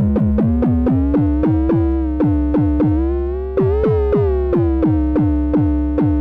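Moog DFAM analog percussion synthesizer playing a fast sequence of percussive hits, about four a second, each with a falling pitch sweep. Under them a held oscillator tone rises in pitch as the second oscillator is tuned up by hand, wavers about four seconds in, then settles in tune with the first oscillator, hard sync off.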